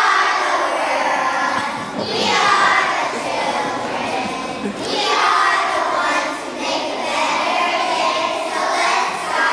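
A group of kindergarten children singing together in unison, in phrases of about two to three seconds with short breaks between them.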